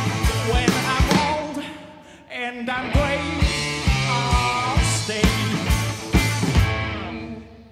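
Live rock band of electric guitars, bass and drum kit playing the end of a song, with a brief break about two seconds in. Near the end the drums stop and the last chord rings out and fades.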